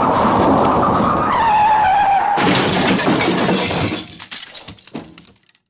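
Dense mechanical noise with a whine that falls in pitch, then a sudden loud crash of something breaking about halfway through, with clattering debris that dies away.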